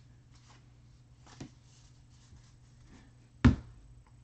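Trading cards rustling and sliding against each other as they are flipped through by hand. About three and a half seconds in comes a single sharp thump, as the stack is put down on the table.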